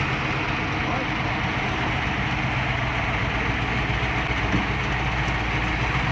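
A heavy machine's engine running at a steady speed, an even low drone with mechanical noise over it.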